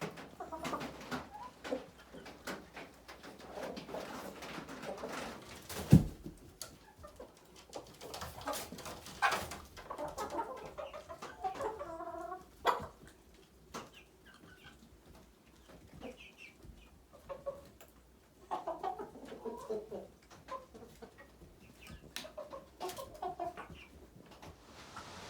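Hens clucking on and off in short clusters of calls, with a few sharp knocks, the loudest about six seconds in.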